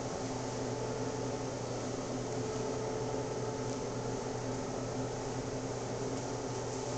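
A steady hum with hiss, holding a few low tones level, like a running fan or other machine noise in a small room.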